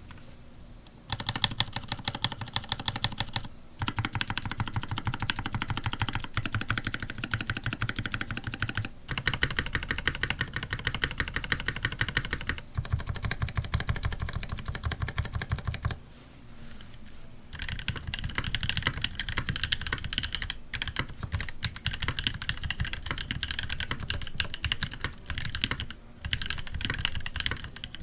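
Custom TX87 SE tenkeyless mechanical keyboard with lubed Cream linear switches, a brass plate and GMK keycaps being typed on quickly. The typing starts about a second in and comes in runs of several seconds, broken by a few brief pauses.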